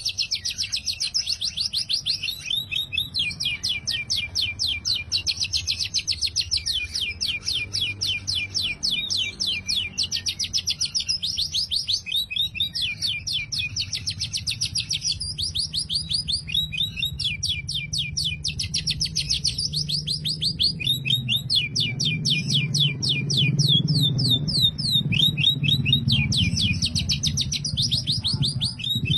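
Oriental magpie-robin (kacer) singing long runs of rapid, canary-like trills, with short breaks between phrases.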